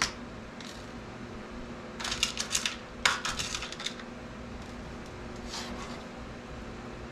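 Small metal tattoo-machine parts clinking and rattling as they are handled, in two quick clusters of clicks a couple of seconds in, with a few single clicks before and after.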